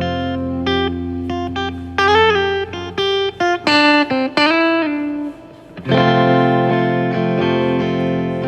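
Guitar playing single plucked notes, several of them bent in pitch. A short lull comes about five and a half seconds in, followed by a held chord.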